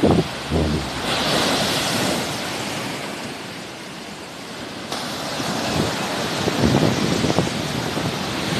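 Sea waves washing onto the shore, the surf swelling about a second in, easing, and building again about five seconds in, with wind buffeting the microphone in low gusts.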